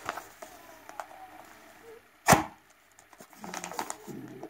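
A knife cutting open a small paper postal packet, with soft rustling and one sharp crack a little past halfway. More crinkling of the opened packet follows near the end.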